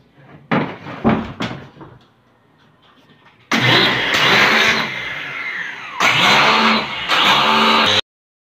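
A few knocks from handling the plastic unit, then an electric pressure washer's motor and pump start suddenly and run loud. Partway through the pitch falls as it winds down, then it runs again in two more spurts before the sound cuts off abruptly near the end.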